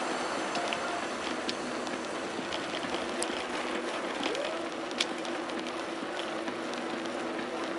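Steady rushing noise of riding a bicycle, wind and tyres, with scattered small clicks and rattles. A faint steady hum comes in about halfway through.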